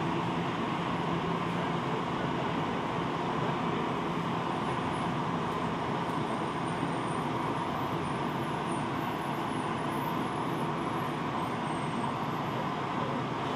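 Steady cabin ambience inside a Tokyo Metro Ginza Line subway car: an even rumble and hiss with a low hum that fades about four seconds in.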